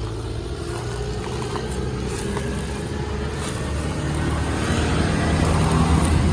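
Motor vehicle engine running steadily, getting louder over the last couple of seconds.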